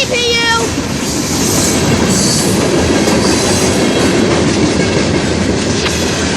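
Norfolk Southern freight train's cars rolling past: a loud, steady rumble and clatter of steel wheels on the rails, with a faint high wheel squeal about two seconds in.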